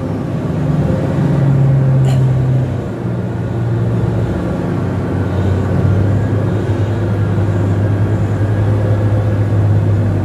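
Diesel engines of large mining haul trucks running, one truck pulling forward; its engine note steps down in pitch a few times and then holds steady. A single sharp click about two seconds in.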